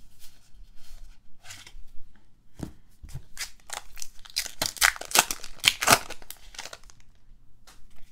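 A crimped plastic trading-card pack wrapper being torn open and crinkled in the hands, a dense crackling that comes about three to six seconds in. Before it come a few light clicks of cards being handled.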